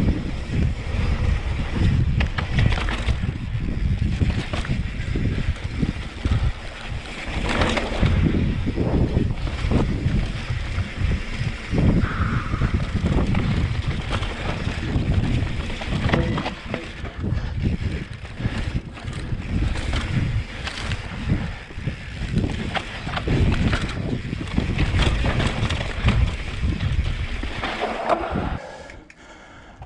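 Mountain bike descending a dry, rocky dirt trail: wind buffeting the microphone over the rumble of knobby tyres on dirt and rock and the knocks and rattles of the bike over bumps. The noise drops off sharply near the end.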